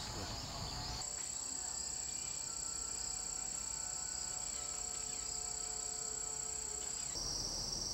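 Insects chirring steadily, a continuous high-pitched trill. The sound changes abruptly about a second in and again near the end.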